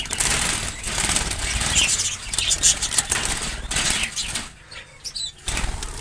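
Young budgerigars' wings flapping as a flock flutters out of a cloth bag and around a cage, easing off for about a second near the end.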